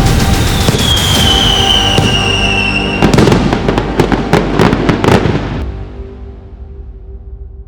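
Aerial fireworks going off: dense crackling and bangs with a falling whistle about a second in, then a quick volley of sharp bangs before the noise dies away.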